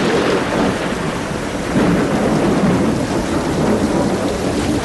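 Heavy rain falling steadily, with a low rumble of thunder swelling about two seconds in.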